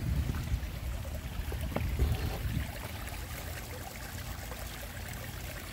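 Running water of a garden water feature, a steady trickling hiss over a constant low rumble.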